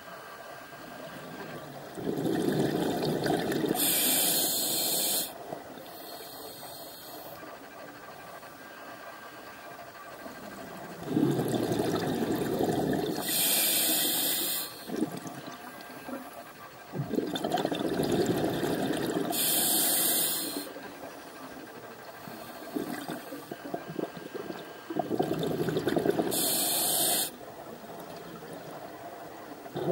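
A scuba diver breathing on an open-circuit regulator, heard underwater: four breath cycles about every six to seven seconds, each a burst of rushing, gurgling exhaled bubbles with a brief sharp hiss from the regulator.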